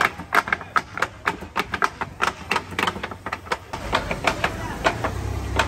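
Several knives chopping on a wooden board, quick irregular knocks several a second. About four seconds in, a low steady rumble joins underneath.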